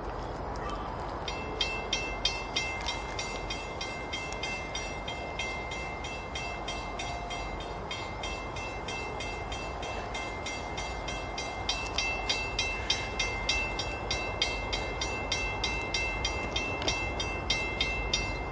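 A railroad bell begins ringing about a second in, with quick, even strikes, over the low rumble of an approaching diesel train.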